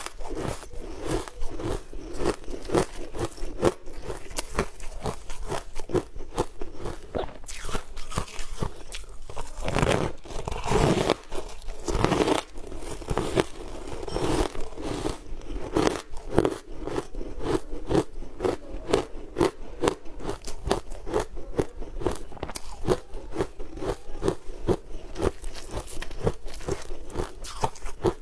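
Close-miked crunching and chewing of frozen food chunks coated in green powder: rapid crisp crunches with no let-up, and a few heavier bites near the middle.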